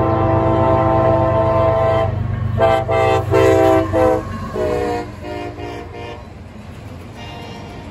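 CSX freight diesel locomotives' air horn blowing for a grade crossing. It gives one long blast that ends about two seconds in, then a run of short blasts; the later blasts sound lower in pitch as the locomotives go by. The horn stops about six seconds in, leaving the low rumble of the passing train and its autorack cars.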